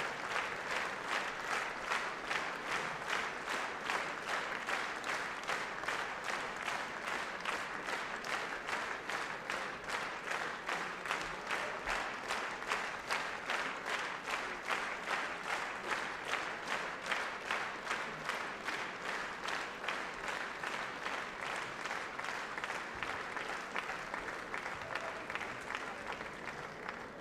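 Theatre audience applauding, the clapping falling into a steady rhythmic unison of about two to three claps a second.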